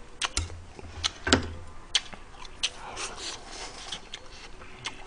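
Close-miked eating sounds as ramen noodles and stew are eaten with metal chopsticks: a string of short, irregular clicks and mouth smacks, with a few soft slurps.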